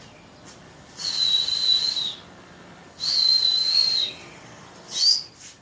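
A person whistling: two long, steady high whistles of about a second each, then a short upward whistle near the end.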